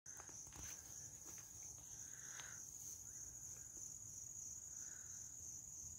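A faint, steady, high-pitched insect trill that never breaks.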